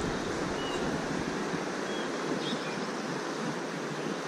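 River water flowing steadily over the shallows, a constant rushing, with a few faint short high chirps.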